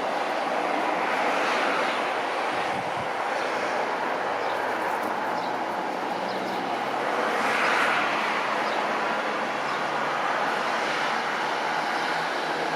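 Engine noise from an Embraer E-195 jet's twin turbofans on landing approach: a steady broad roar that swells about a second and a half in and again about seven seconds in.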